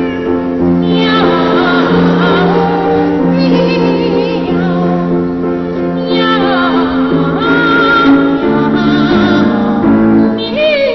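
Children's choir singing in imitation of cats' meowing, over instrumental accompaniment holding sustained chords. The voices waver and slide down in pitch like meows, about six seconds in and again at the very end.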